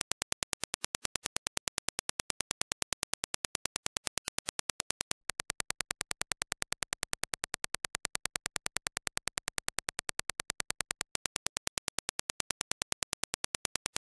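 A rapid, evenly spaced train of sharp clicks: Dirac test impulses. After a brief gap about five seconds in, the clicks continue as reproduced by the HiFiMAN Edition XS planar-magnetic headphones through a measurement head.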